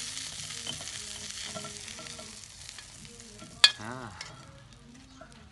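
Freshly fried sand worms sizzling in hot oil in a wok as they are tipped out onto a plate. The sizzle fades away, and there is one sharp clank a little past halfway.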